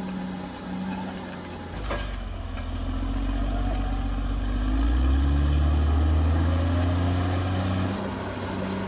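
Caterpillar D6R XL bulldozer's diesel engine running; after a single knock about two seconds in, it pulls harder with its pitch rising, then eases back near the end.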